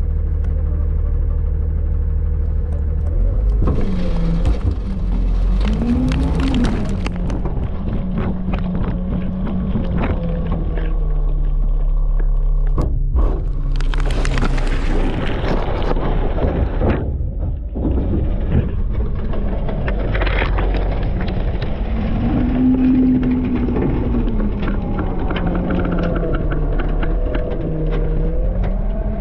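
Front-load garbage truck's engine idling, then revving up and down several times as it drives the hydraulics. Two loud bursts of clattering, rushing noise come about four seconds in and again about halfway through.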